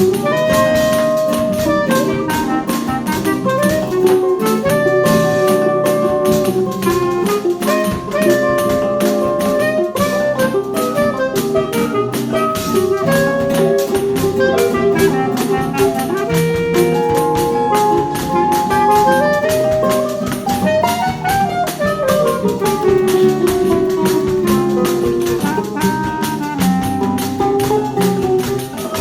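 Choro ensemble playing: a clarinet carries the melody in long held notes with a few slides, over nylon-string guitars, mandolin, tuba, pandeiro and drum kit keeping a busy, steady rhythm.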